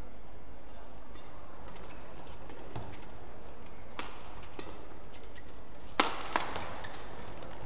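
Badminton rackets striking the shuttlecock in a fast doubles rally: sharp cracks, faint at first, then a clearer run of hits from about four seconds in, the loudest about six seconds in. A steady background hum runs underneath.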